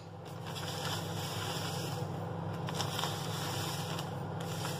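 Steady low hum with a few faint clicks and rustles from a metal spoon and a sugar bag as sugar is spooned into a bowl of flour.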